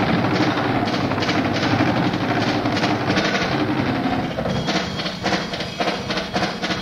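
Drum solo on a Tama drum kit with Remo Rototoms, played as a dense run of fast strokes that thins to sparser, separate hits about four and a half seconds in. The sound is a lo-fi boom-box cassette recording.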